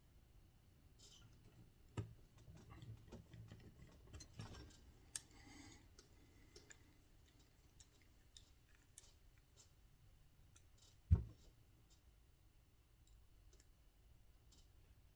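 Faint scattered clicks and light taps of small screws and a screwdriver being handled and driven into a model helicopter's frame, with a sharper knock about two seconds in and the loudest knock about eleven seconds in.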